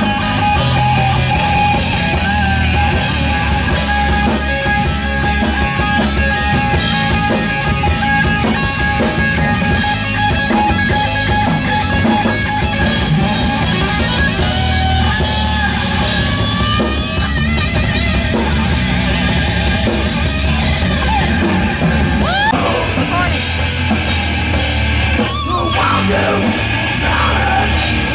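Live heavy metal electric guitar solo on a Dean guitar over a drum kit, played loud through stage amplifiers. A long held note rings through the first several seconds, and bent, sliding notes come later.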